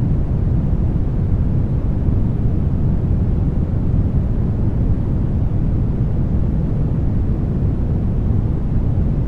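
Steady brown noise: an even, deep rumbling hiss with most of its energy in the low end and no changes.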